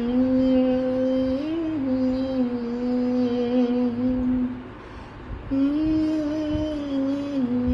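A man singing long wordless held notes, bending slightly in pitch, in two phrases with a short break about five seconds in.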